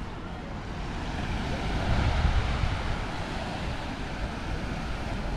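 Surf washing on a sandy beach with wind rumbling on the microphone. The sound swells about two seconds in, then eases.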